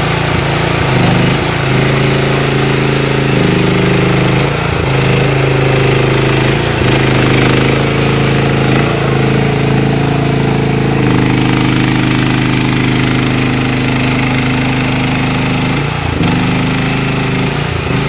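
QH12 mini excavator's engine running under hydraulic load, its pitch dropping and rising in steps several times as the boom and bucket are worked and the machine drives on its tracks.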